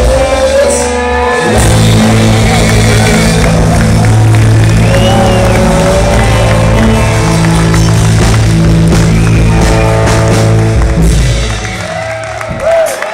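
Live rock band (electric guitars, bass and drums) playing the closing bars of a song, with long held bass notes, recorded on a phone from the audience. The music stops about twelve seconds in and the crowd starts to cheer.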